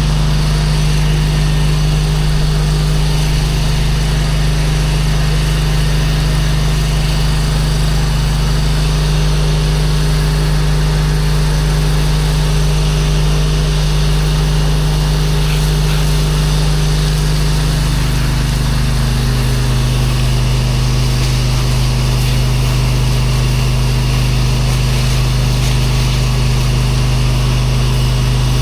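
Gas-engine pressure washer running steadily, its engine pitch stepping down and back up a few times as the spray load changes.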